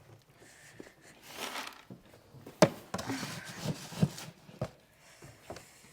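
Horse grain feed being scooped: a few sharp knocks of the scoop against the container, with a rustling pour of grain about a second and a half in and again around three seconds.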